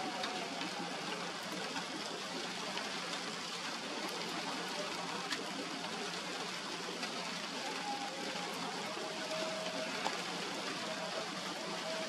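Steady hiss of rain with wind, an even noise without breaks.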